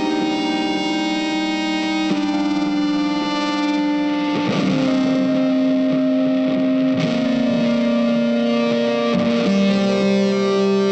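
Background music: a distorted electric guitar playing sustained chords that change every second or two.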